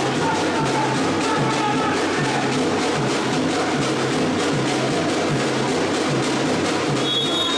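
Background music with a steady percussive beat and a repeating bass line.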